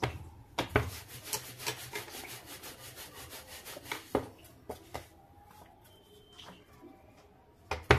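Wooden rolling pin rolling flour-dusted maida dough thin on a wooden board: rhythmic rubbing strokes, about three a second, growing fainter in the second half, with a sharp knock near the end.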